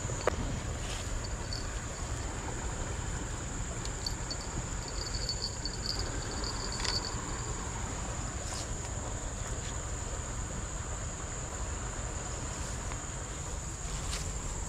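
Insects calling in a steady, unbroken high-pitched drone, with a short run of rapid pips midway and a low rumble underneath.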